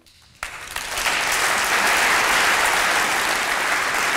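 Audience applauding: a steady wash of clapping that starts abruptly about half a second in, after a brief quiet moment.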